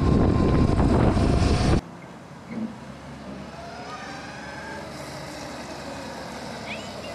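Loud wind rush on the microphone of a camera riding on a homemade 90-volt electric dirt bike, cutting off suddenly about two seconds in. Then, much quieter, a faint whine from the bike's electric motor drive rises in pitch as it accelerates.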